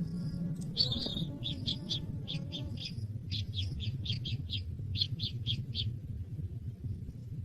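A bird chirping, short high chirps in quick runs of three to seven, over a steady low rumble.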